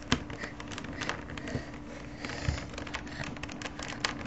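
Plastic Rubik's Cube pieces clicking and rattling as they are handled and pushed into place by hand, with one sharp click just after the start and lighter scattered clicks after it. A faint steady hum sits underneath.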